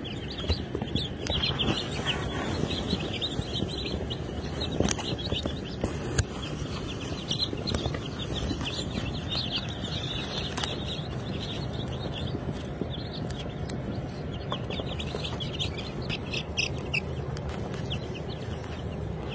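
A boxful of day-old Turken (naked neck) chicks peeping nonstop, many short high cheeps overlapping, over a steady low background noise with a few sharp clicks.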